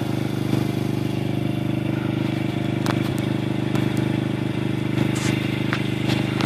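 A 2003 Honda TRX 90's small single-cylinder four-stroke engine, breathing through a Big Gun Evo Mini full aftermarket exhaust, running at a steady speed.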